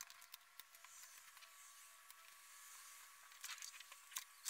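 Near silence with faint scattered clicks and rustles of a pencil and ruler being handled against paper, with a small cluster of sharper clicks about three and a half seconds in and another near the end.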